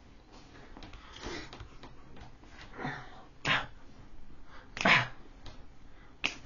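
A person making short, sharp breathy vocal sounds, about five in all, the loudest about three and a half and five seconds in, with faint room noise between.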